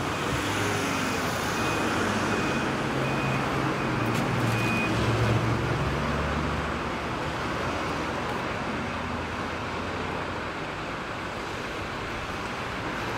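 Steady road traffic noise with a low engine hum that fades after about seven seconds, and a faint high beep repeating in short dashes during the first few seconds.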